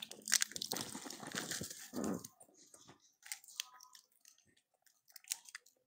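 Monkeys cracking and chewing peanuts: a dense crackle of small shell cracks over the first two seconds that thins to scattered clicks, with a short low vocal sound about two seconds in.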